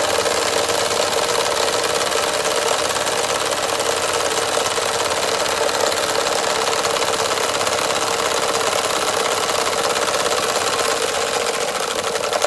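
DM-1 model two-cylinder steam engine running with a fast, even chuffing clatter as it turns a small dynamo. The dynamo's output is too low to light its lamps.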